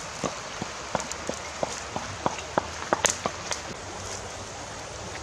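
Open wood fire crackling under catfish grilling on a wire rack, with irregular sharp pops over a steady hiss.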